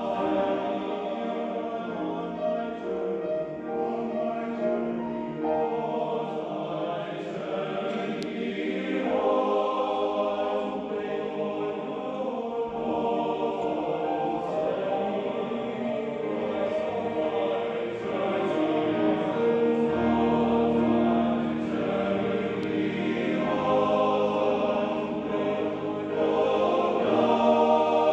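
Men's glee club, a male-voice choir, singing sustained chords in several parts, the chords shifting every few seconds.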